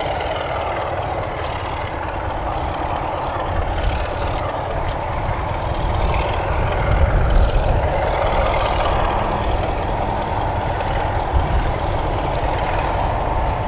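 Heritage diesel-hauled train of Class 33 locomotive 33063 and Class 31 locomotive 31430 running past, a steady rumble of diesel engine and wheels that grows a little louder about seven seconds in.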